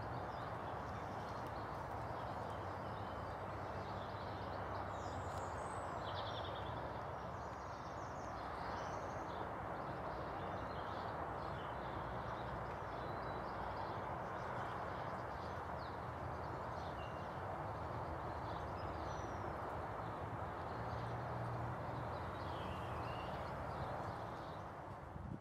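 Wild birds chirping in short, scattered calls, more of them in the first half, over a steady rushing outdoor background noise.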